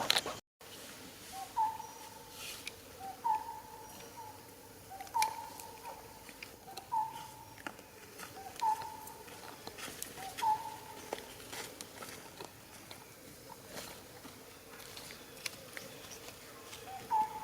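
A bird calling over and over, each call a short lower note followed by a longer, slightly higher one, repeated about every two seconds. It pauses for several seconds and starts again near the end, with faint scattered clicks and taps in the background.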